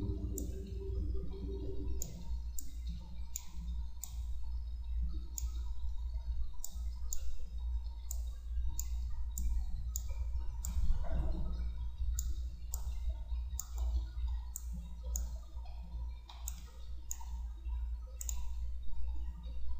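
Computer mouse clicking at irregular intervals, roughly one click every half second to a second, over a steady low hum.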